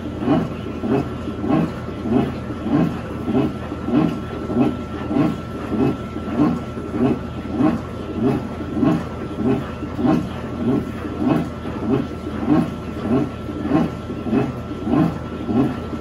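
Electrolux top-loading washing machine agitating: regular swishing, thudding strokes about twice a second, over a steady thin whine.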